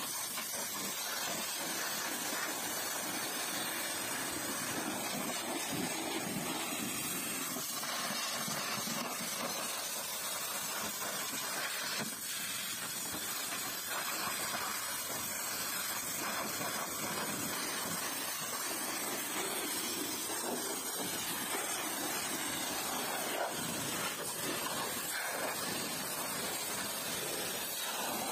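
High-pressure washer lance spraying a steady jet of water onto a car's wheel and lower body panels, rinsing off wash foam: a continuous hiss of spray hitting metal and wet pavement.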